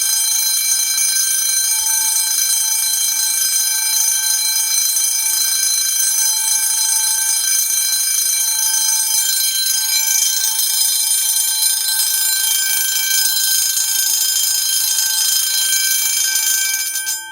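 10-inch 24 V DC fire alarm bell ringing continuously, its clapper hammering the gong in a rapid steady ring. The ringing cuts off abruptly near the end, and the gong's tone rings on briefly.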